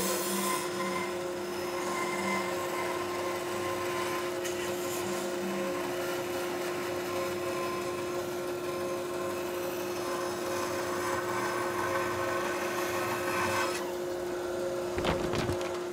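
Bandsaw with a 3/8 inch blade cutting through a thick walnut board, running with a steady hum under the rasp of the blade in the wood. Near the end the cutting noise thins out as the blade comes clear of the board.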